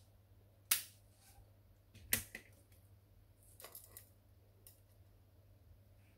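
Sharp clicks and knocks of Canon LBP251 laser printer parts being handled and fitted back together: two single clicks about a second and a half apart, then a quick run of small clicks.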